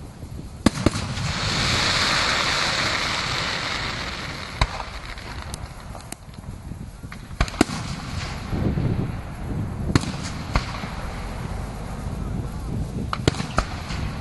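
Fireworks display: aerial shells bursting with sharp bangs every second or two, some in quick pairs and triplets, with a long swelling hiss in the first few seconds.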